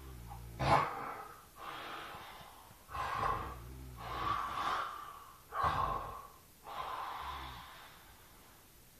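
A man snoring in his sleep: three rasping snoring inhales, about two and a half seconds apart, each followed by a long breathy exhale. The snoring stops about a second before the end.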